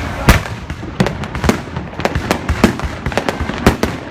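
Fireworks going off: a rapid, irregular string of sharp bangs, several a second.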